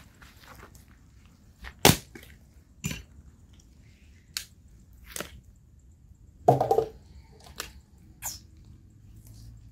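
Hatchet splitting firewood into kindling on a chopping block: a series of sharp wooden chops and knocks spread irregularly, the loudest about two seconds in, with a heavier clatter of wood about six and a half seconds in.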